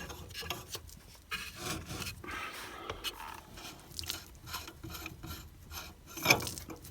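Hand tools scraping and clicking against metal fittings as a central heating circulating pump is undone for removal, with a sharper knock near the end.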